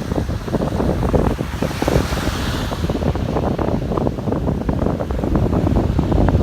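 Ocean surf washing on a beach, with wind buffeting the microphone in heavy low rumbles; the hiss of a breaking wave swells about two seconds in.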